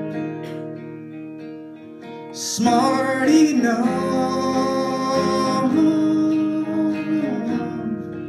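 Solo male singer with a hollow-body electric guitar playing a slow song. Chords ring out, and about two and a half seconds in he sings one long held word.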